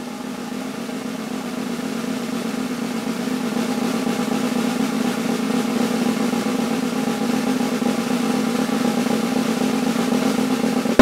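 Snare drum roll building steadily louder and ending in a sharp accent, leading into a brass passage.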